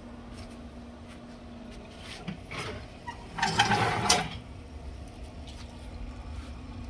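Steel barrel grill's lid and its hanging hardware being lifted and moved aside: a few light clicks, then a louder scraping metal rattle about three and a half seconds in, over a faint steady hum.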